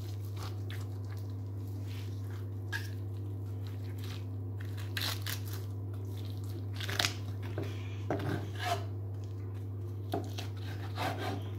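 Knife and carving fork cutting up a roast chicken on a wooden board: scattered short crunches and scrapes as the crisp skin and joints are cut, over a steady low hum.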